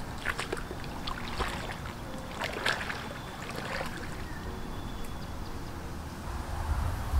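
A few sharp clicks and rustles of handling in the first three seconds, then a steady faint outdoor background, with a low rumble building near the end.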